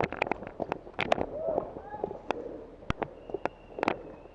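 Airsoft guns firing in an irregular string of sharp snaps and clicks, with players shouting in the background.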